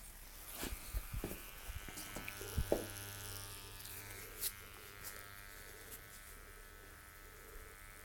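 Omega dishwasher's pump motor buzzing steadily while running dry with no water connected, with a few clicks and a knock in the first three seconds.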